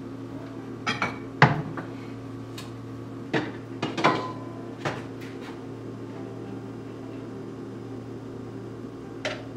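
Kitchen clatter over a steady low hum: a wooden cupboard door and dishes knocking, then a metal pot lid and a ceramic bowl clinking, one clink ringing briefly. The loudest knock comes about a second and a half in, and a last click comes near the end.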